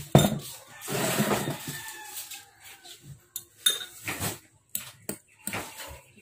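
A ceramic bowl set down on a wooden table with a knock, followed by a metal spoon clinking and scraping against the bowl in a string of short sharp strikes while eating.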